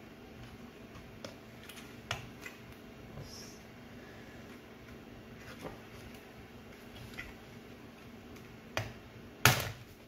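Plastic latches and the circuit board of a Samsung microwave's control panel clicking and snapping as the board is pried out of its housing by hand. The clicks are scattered and small, with one much louder snap near the end.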